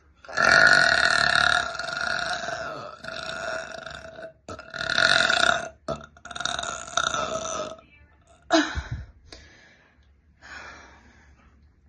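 A person belching: long, loud burps one after another, the first and loudest lasting about four seconds, then two shorter ones. After about eight and a half seconds come a few short, quieter sounds.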